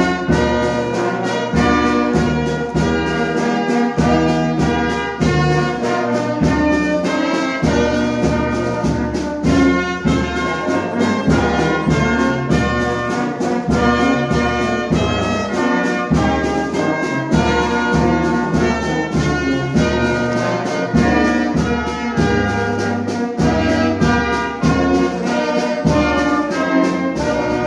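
Brass band playing music over a steady, regular bass line.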